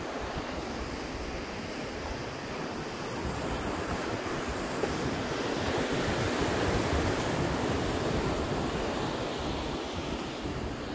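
Ocean surf breaking on the shore, swelling to its loudest about halfway through and then easing off, with gusts of wind rumbling on the microphone.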